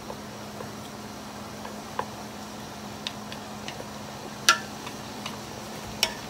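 Wooden chopsticks stirring spaghetti in a stainless-steel pot of boiling water, ticking lightly against the pot now and then, with two sharper clacks, one past the middle and one near the end, over a steady low hum.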